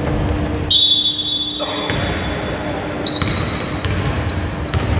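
Basketball being dribbled on a hardwood gym floor, bouncing in a large hall, with thin, high squealing tones coming in one after another from about a second in.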